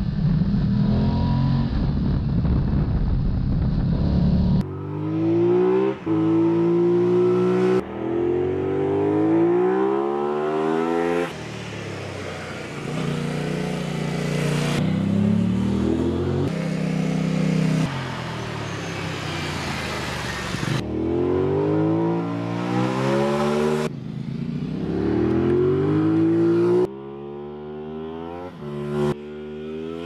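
2021 Aprilia Tuono 660's parallel-twin engine and exhaust. It starts with a steady low rumble at cruising speed, then comes as a series of abruptly cut clips of the bike accelerating and passing, its note climbing with the revs and falling back again and again.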